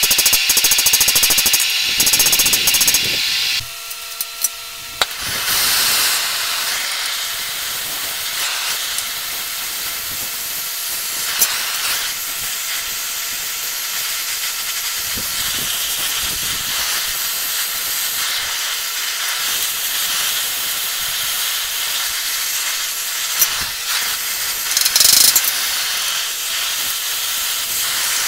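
Oxy-fuel torch flame hissing steadily while it heats a bundle of steel rods, with a few faint clicks. It starts about five seconds in, after a louder opening sound that cuts off suddenly.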